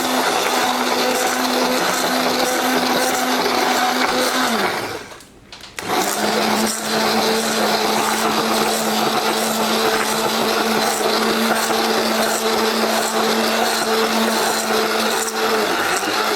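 Electric hand mixer beating batter, a steady motor hum; it winds down and stops about five seconds in, starts again a second or so later at a slightly lower pitch, and shuts off near the end.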